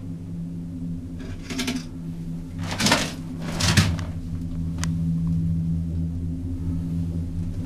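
Steady low hum of a gondola cable-car cabin riding the cable, with a few short rattles near one and a half, three and four seconds in, the ones at three and four the loudest, and a light click about five seconds in.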